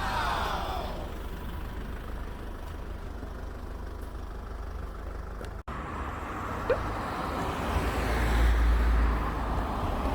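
Steady road-traffic and vehicle noise, a low rumble with a passing sound sweeping down in pitch at the start and a burst of wind buffeting the microphone near the end.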